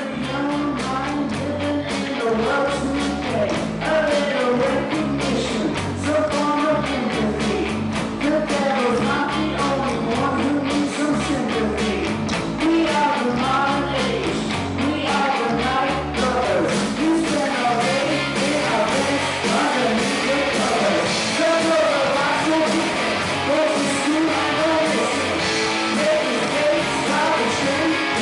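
Rock song with a singer over a steady drum beat and bass.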